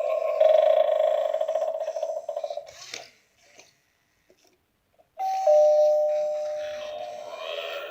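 Gemmy animated eyeball doorbell sounding through its small speaker: a fluttering electronic sound fades out, a click follows, then after a couple of seconds of silence comes a two-note ding-dong chime that rings and slowly dies away.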